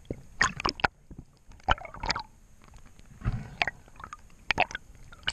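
Seawater splashing and gurgling in irregular short bursts.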